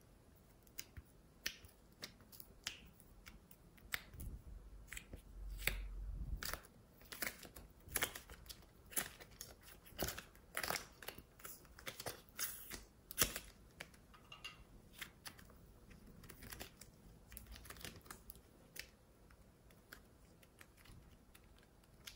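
Small clicks and crackles of a clear plastic case being handled while soft modelling clay is pulled out of it and pressed together by hand, thickest in the middle and thinning out near the end. A low bump comes about five seconds in.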